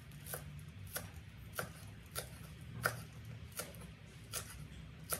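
Cleaver chopping green onions on a wooden cutting board: about eight evenly spaced knocks of the blade on the board, a little more than one a second.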